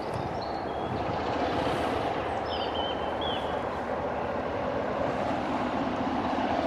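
Diesel locomotive engine running steadily at idle while the locomotive stands at the platform, growing slightly louder toward the end.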